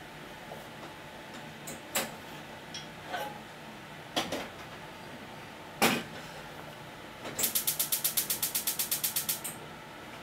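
Click beetle on its back snapping its body to jump, several sharp clicks with the loudest about six seconds in. Later comes a fast, even run of about twenty ticks, roughly ten a second, lasting about two seconds.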